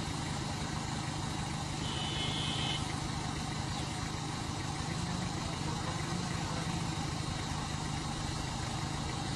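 Vehicle engines idling steadily with the vehicles stopped, a low even running sound, with a brief high tone about two seconds in.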